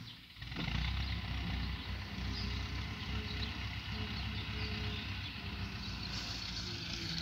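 Ursus C-360 tractor's four-cylinder diesel engine running hard, its sound rising about half a second in and then holding as a steady low rumble while the front loader works bales.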